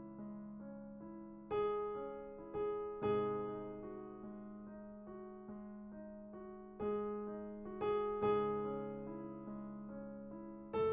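Background piano music: a slow, gentle melody of single struck notes that ring and fade, with a few stronger notes standing out.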